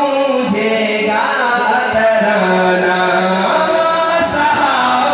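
A man singing a devotional Urdu kalam (naat-style recitation) solo into a microphone, holding long notes that slide and waver in pitch, with one new phrase rising about a second in.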